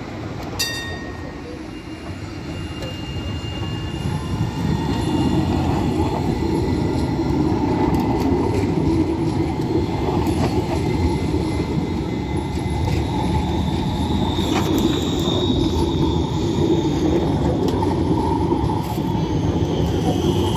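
Low-floor RET trams, Alstom Citadis, running past on street track: a steady rumble of wheels on rail that grows louder about four seconds in and stays close. Thin high squeals of the wheels on the rails come and go above the rumble.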